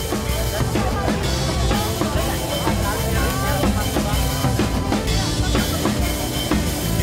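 Background music with a drum kit playing a steady beat.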